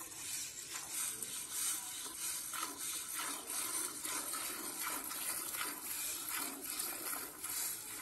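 Cow being milked by hand: squirts of milk hissing into a steel pail partly filled with milk, one squirt after another in a steady rhythm as the teats are pulled.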